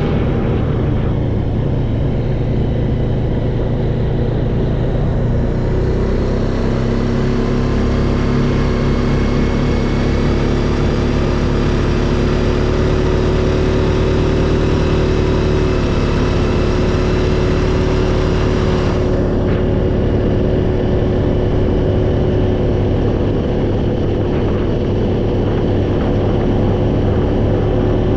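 A vehicle driving, with steady engine and road noise; the engine tone shifts a little about six seconds in and again near the middle.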